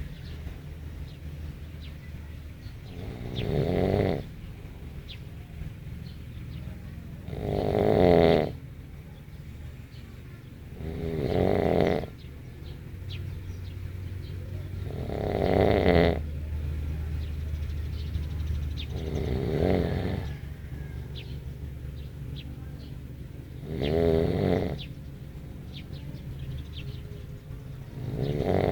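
A sleeper snoring: loud rasping snores about every four seconds, each swelling up over about a second and then breaking off, with a steady low hum underneath.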